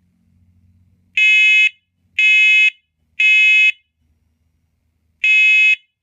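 First Alert PC900V combination smoke and carbon monoxide alarm sounding its test, extremely loud: three half-second beeps about a second apart, a pause, then the next group of three starting near the end. This is the temporal-three pattern that signals smoke.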